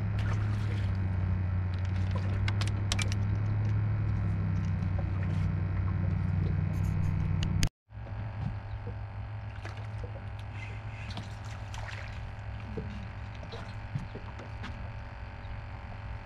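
Electric trolling motor running with a steady low hum, with scattered light clicks. The sound breaks off for a moment a little past halfway, then carries on quieter.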